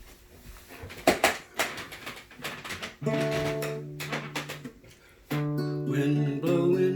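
Acoustic guitar: a few sharp knocks and scrapes on the instrument, then a strummed chord about three seconds in that is left ringing, and a second chord with single notes moving over it a couple of seconds later.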